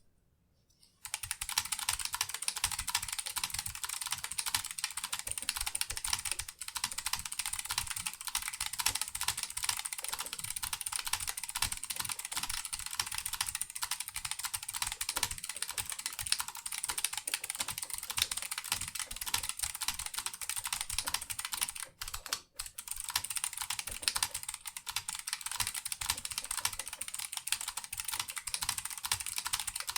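Continuous typing on a Vortex Race 3 mechanical keyboard with clicky Kailh Box Pink switches in a steel plate, aluminium case and PBT DSA keycaps: a dense stream of sharp key clicks. It starts about a second in, with a brief pause about two-thirds of the way through.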